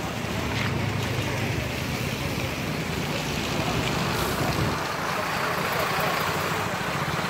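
A vehicle engine running steadily, with crowd voices talking over it.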